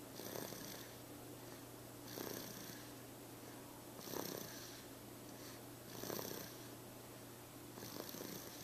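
Slow, regular snoring: five snores about two seconds apart, over a steady low hum.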